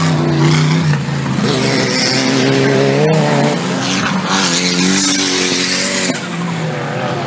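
4WD off-road racing vehicle's engine revving hard, its pitch climbing in two surges. A loud rushing noise rides over it and cuts off suddenly about six seconds in.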